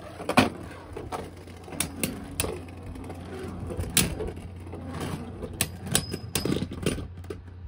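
Two Beyblade Burst spinning tops battling in a plastic stadium, with irregular sharp plastic clicks and knocks as they collide with each other and the stadium walls.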